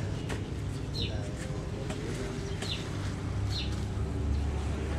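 A few short bird chirps, each falling quickly in pitch, over a steady low market background; a low drone like a passing motorbike comes up about three seconds in.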